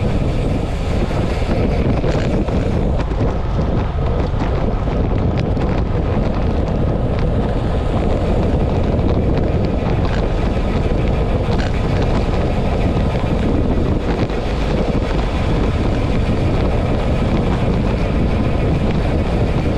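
Steady wind rushing over a bike-mounted camera's microphone as a road bike rides at about 50 km/h, with a few faint ticks.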